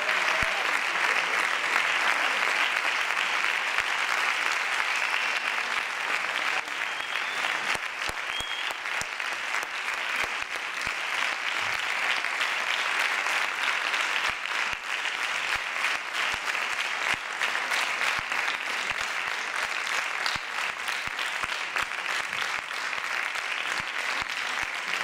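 Sustained applause, many hands clapping together at a steady level.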